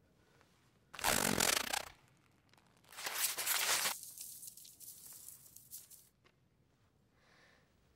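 A Howler letter ripping itself apart: two loud bursts of tearing paper about two seconds apart, the second trailing off into a fading rustle of falling shreds.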